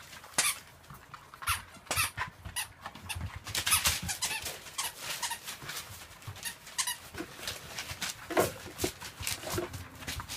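Rough collie puppies playing: short squeaky yips among scuffling and quick clicks, with a couple of brief higher calls near the end.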